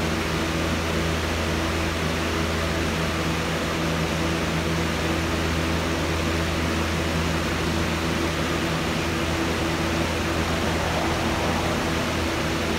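Steady, even hiss with a constant low hum underneath, unchanging throughout.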